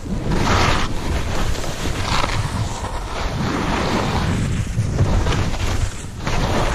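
Skis scraping and hissing over firm, chopped-up snow as the skier turns down a steep run, the scrape swelling and fading with the turns, under steady wind rumble on the microphone.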